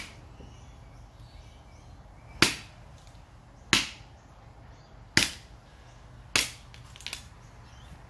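Derringer khukuri blade chopping into a thin upright softwood stick: four sharp chops about a second and a quarter apart, then a couple of lighter knocks near the end. The blade bites deep and cuts through the stick.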